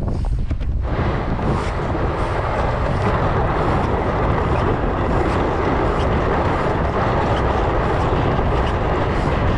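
Ice-fishing sled dragged by tow ropes over snow-covered lake ice, close-up: a steady scraping hiss that thickens about a second in, over a low wind rumble on the microphone.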